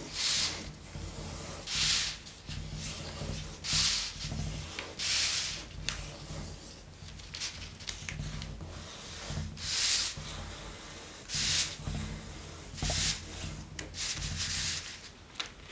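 Fingers running firmly along the folds of a long paper strip to crease them sharp: a series of dry rubbing swishes, about one every one to two seconds.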